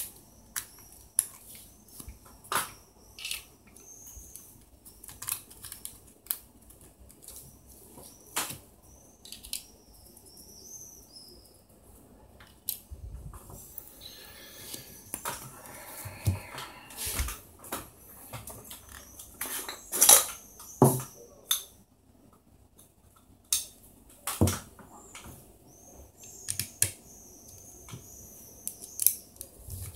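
Small plastic and metal parts of an Alcatel One Touch Pixi 3 phone clicking and tapping by hand as the SIM and memory cards are pulled from their slots and laid down, then a small screwdriver and bit are handled. Irregular sharp clicks and light knocks, the loudest about two-thirds of the way through, with a short spell of rustling handling noise.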